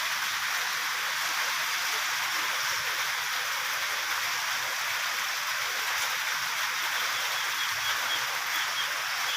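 Steady rushing water noise, unbroken throughout, as of rain or running water in the rainy season.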